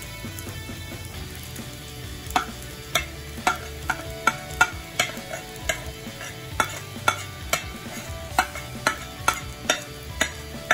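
A utensil repeatedly tapping and scraping against a non-stick frying pan as breadcrumbs are worked into scrambled egg, about two sharp taps a second from about two seconds in, over a light frying sizzle.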